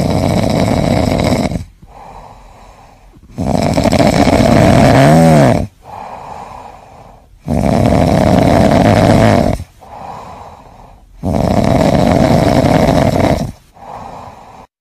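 Sleeping cat snoring: four loud snores, each about two seconds long, with a quieter breath between them.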